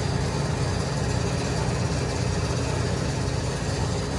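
Aviation fuel pump running with a steady low hum while fuel flows through the hose into an aircraft wing tank.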